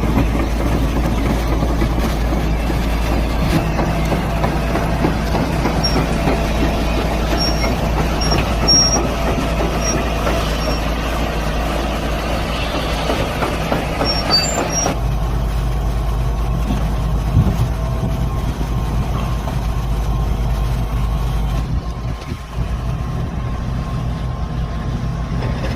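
Excavator-mounted rock drill at work on blast holes, its heavy diesel engine and drilling running loud and steady, with an abrupt change in the sound about fifteen seconds in.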